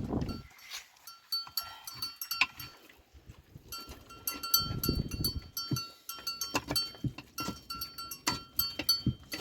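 Small livestock bells on a flock of sheep and goats tinkling irregularly, with many short clinks and a brief low rustle about five seconds in.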